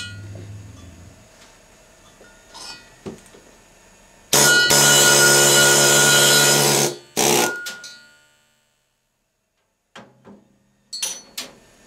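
A hand-held pneumatic tool on an air hose runs loud and steady for about two and a half seconds, then gives one short second burst. It is driving a removal tool that cuts an old valve guide liner out of an aluminium cylinder head. A few faint clicks follow near the end.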